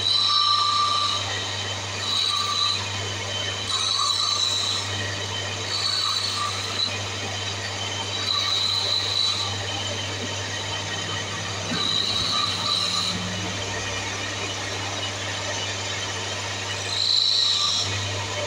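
Wood lathe running with a steady low hum while a turning tool is held against the spinning wooden spindle to cut fine decorative grooves. The cut gives a high-pitched squeal about seven times, each lasting about a second.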